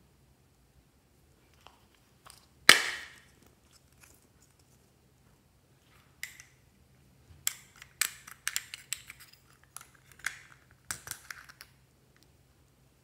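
Small plastic containers of slime toppings being handled and opened: one loud, sharp click about three seconds in, then a run of small plastic clicks and taps from about seven to twelve seconds.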